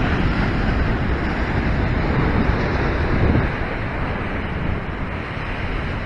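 Ocean surf breaking and washing against a rock ledge, a continuous churning rush that swells and eases with the waves, with wind buffeting the microphone.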